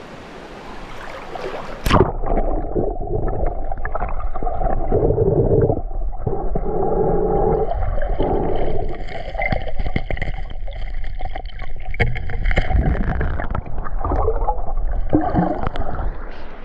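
A splash as an action camera plunges under water about two seconds in, then muffled underwater sound of a diver moving near the riverbed, with scattered knocks and bubbling. The sound brightens again right at the end as the camera comes back up toward the surface.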